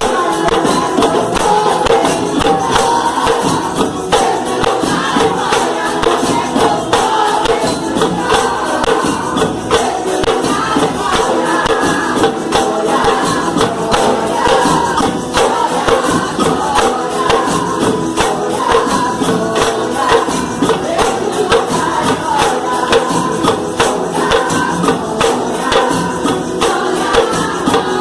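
A church percussion group playing gospel music: fast, continuous percussion strikes under group singing.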